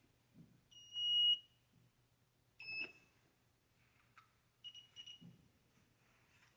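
Electronic beeps from an R3X remote-controlled golf caddy powering up for its warm-up: one long high beep about a second in, a shorter beep with a click near three seconds, then two quick beeps around five seconds.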